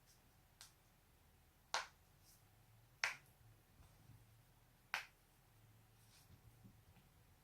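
A person's joints cracking: a faint click, then three sharp, loud pops spaced a second or two apart.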